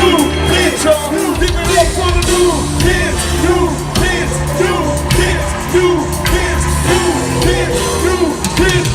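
Live pop concert music with a steady beat, heavy bass and a repeating melody line, with some singing.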